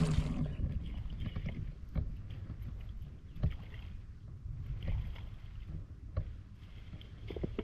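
Shallow rice-field water sloshing and splashing, with a few short knocks scattered through it, over a steady low rumble.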